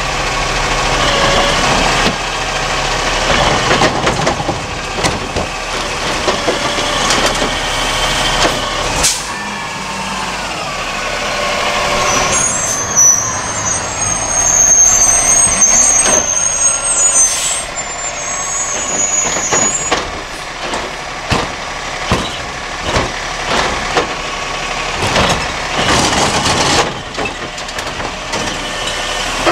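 Peterbilt 320 garbage truck with a DaDee Scorpion automated side-loader arm working a curbside collection. The diesel engine runs and rises and falls in pitch, air brakes hiss, and a high squeal lasts several seconds about midway. A run of sharp knocks and bangs near the end comes as the hydraulic arm grips and lifts the next cart.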